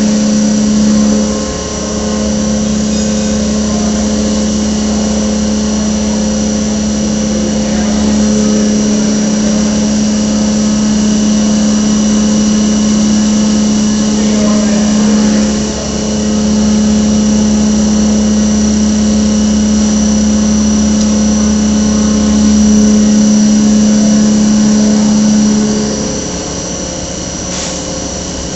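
CNC milling machine running its program: a steady mechanical hum with a constant pitch from the spindle and cutting. It dips briefly twice and eases off near the end.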